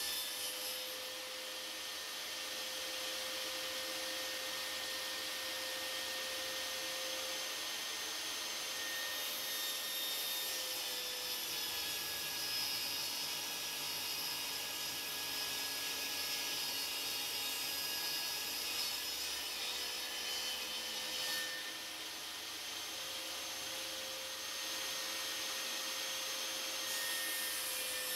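Benchtop table saw running and cutting a shallow groove along wooden boards pushed flat across its table: a steady motor hum with the even hiss of the blade in the wood.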